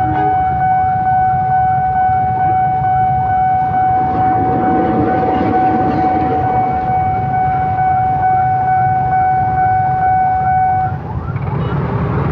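Railway level-crossing warning alarm sounding one steady high tone while a diesel locomotive rolls past with a low rumble. The alarm cuts off about eleven seconds in, once the train has cleared the crossing.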